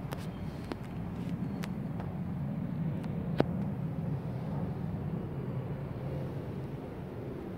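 Steady low background rumble with a few light clicks, and one sharp click about three and a half seconds in.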